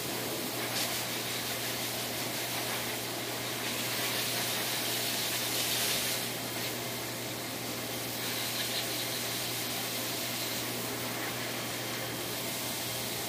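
Dog-grooming blower dryer running steadily, its air blast hissing out of the hose nozzle into a dog's coat over a low steady hum. The hiss brightens twice for a couple of seconds as the nozzle is moved over the coat.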